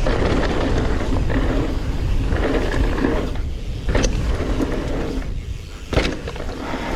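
Specialized Stumpjumper Evo Alloy full-suspension mountain bike rolling fast over rocky singletrack: tyres running over dirt and rock with the bike rattling, under a steady rush. There are two sharp knocks, about four and six seconds in, from the wheels hitting rocks.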